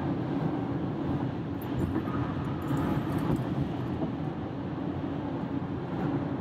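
Steady road and tyre noise of a car cruising on a highway, heard from inside the cabin.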